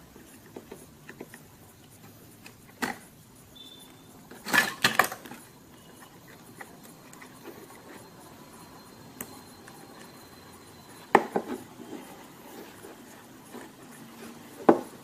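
Small hand tools and plastic and metal phone parts clicking and knocking as a mobile phone is taken apart, scattered light ticks with a few louder sharp knocks, a quick group of them about five seconds in.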